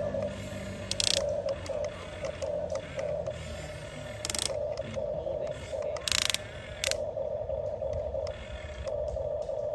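Huina 1550 RC excavator's small electric gear motors whining in short stop-start runs as it is operated. Three brief, louder harsh rattles come about one, four and six seconds in.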